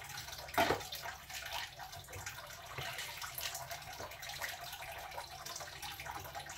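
Kitchen tap water running into a sink, with small clinks of dishes and utensils and one louder clatter about half a second in.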